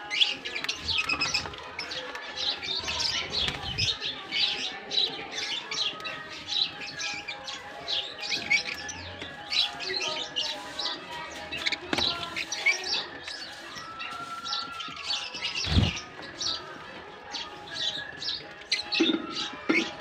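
Mixed aviary of small cage birds chirping and chattering in a rapid, unbroken stream of high chirps, with one dull thump about 16 seconds in.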